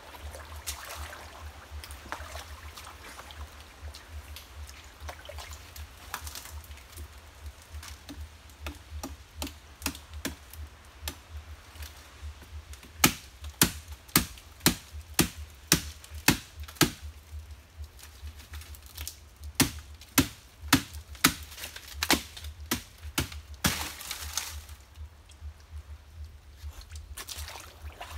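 Sharp cracking knocks in two runs of about two a second as a nipa palm fruit cluster is worked loose from its stalk.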